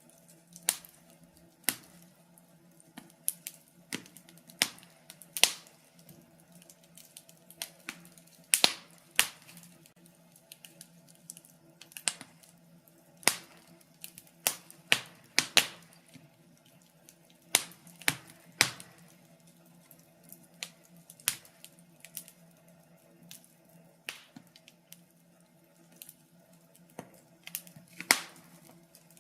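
Wood fire in a fireplace crackling: sharp, irregular pops and snaps, sometimes several close together, over a faint steady hum.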